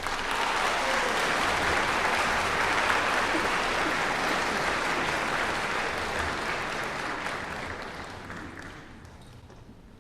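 Concert audience applauding, dying away over the last few seconds.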